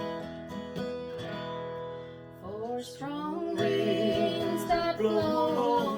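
Acoustic guitar strumming a country folk accompaniment, with a singing voice coming in about halfway through.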